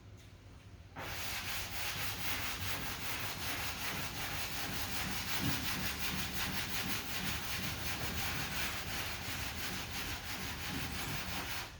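Hand sanding block with sandpaper scrubbing back and forth over dried lacquer primer on a car body panel, blocking the primer over a body-filler dent repair to find the low spots. Steady, rapid, evenly repeated strokes start about a second in.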